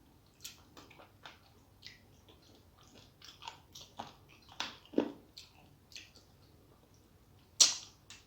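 Close-miked eating sounds of rice, dal and curry: a string of short, wet chewing and mouth sounds. One is louder about five seconds in, and the loudest, a sharp one, comes near the end.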